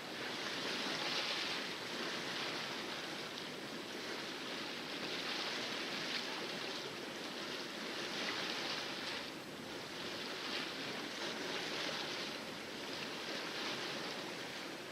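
Water splashing and rushing along a sailboat's hull as it sails in calm seas, a steady hiss that surges and eases every few seconds.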